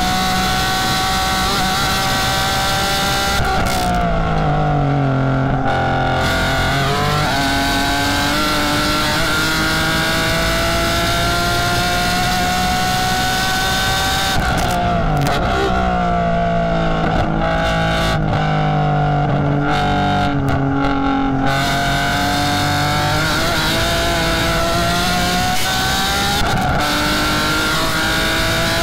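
BMW E46 M3's S54 straight-six race engine, heard from inside the cockpit, running hard at high revs around 7,500 rpm. About three seconds in, and again for a longer stretch in the middle, the engine note falls in pitch and then climbs back up. There is a brief dip near the end.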